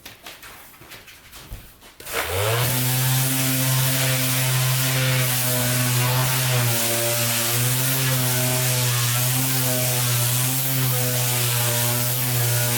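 An electric power saw winding up about two seconds in, then running at a steady pitch as it cuts through plywood.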